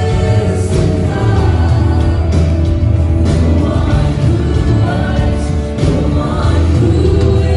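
Gospel choir singing with instrumental backing and a strong bass.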